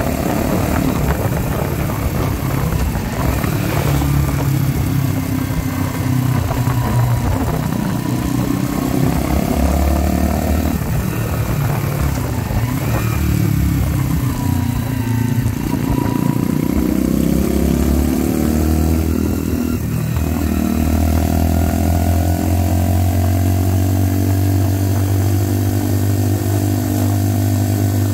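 Mutt Akita 125 motorcycle riding along, heard from the saddle: the 125 cc single-cylinder engine through a slash-cut exhaust repacked with glass fibre packing, which the owner thinks made it louder. The engine note dips and rises partway through, then holds steady, with wind rushing past.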